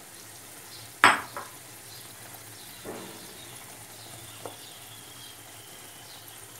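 Diced potatoes and freshly poured beaten egg sizzling in a frying pan, with a wooden spatula stirring and spreading the egg. A sharp knock about a second in is the loudest sound, and a softer knock comes near three seconds.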